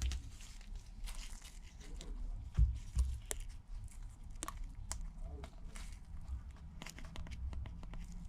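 Small clicks, taps and light crinkling as tools, tape and iPad parts are handled on a workbench. Two louder low knocks come about two and a half and three seconds in.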